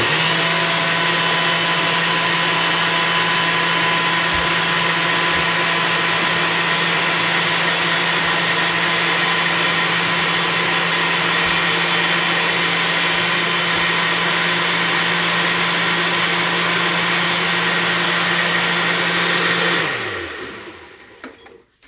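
Countertop blender with an inverted single-serve cup running at a steady speed, liquefying corn masa with milk. About 20 seconds in it is switched off, and the motor winds down with a falling pitch.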